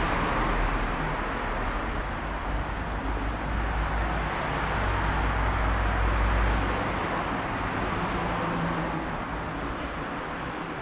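Road traffic noise: a steady rush of passing cars with a low rumble that swells in the middle and then eases off.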